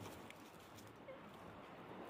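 Near silence: faint outdoor background with a few tiny ticks and one short faint squeak about a second in.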